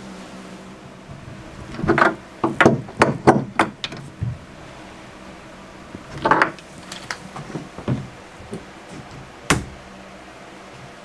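Tub drain wrench and hand tool clacking against the chrome tub drain as the drain is tightened into the bathtub: a quick run of sharp clicks and knocks about two seconds in, another short cluster around six seconds, and a single sharp click near the end.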